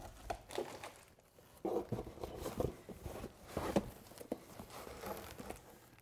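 Packaging being handled in a cardboard box: irregular crinkling and rustling of plastic wrap and cardboard, with a few soft knocks, in several short flurries.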